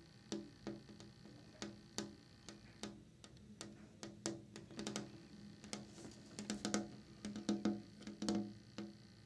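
Painted fingernails tapping on a window's glass pane: sharp, uneven taps, each with a short low ring, coming faster and louder in clusters after about six seconds.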